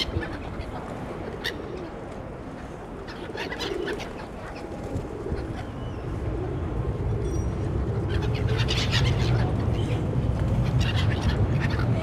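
Gulls calling over open water in short, scattered, high calls that bunch up near the middle and toward the end, over a low rumble that grows louder in the second half.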